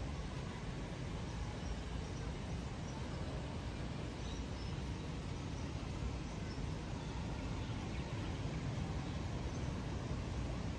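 Steady outdoor background noise with faint, scattered high chirps.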